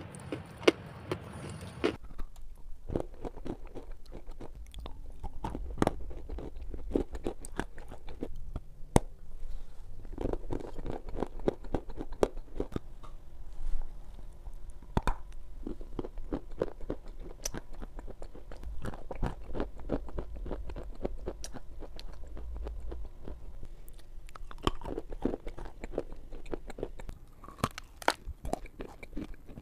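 Close-miked biting and chewing of dry white edible clay: repeated sharp crunches and crumbling snaps as chunks are bitten off and chewed.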